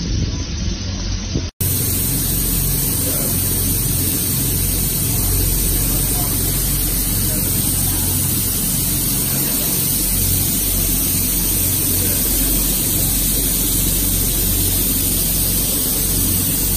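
Disinfectant fogger machines running, a steady hiss of spraying mist over a low hum. It cuts out for an instant about a second and a half in, then goes on brighter as many units run together.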